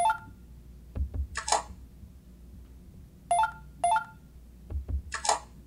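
Verifone Navigator touchscreen payment terminal giving short electronic key beeps as a finger taps its PIN pad: one at the start and a quick pair a little past halfway. Soft taps on the screen and two brief hissy sounds come in between.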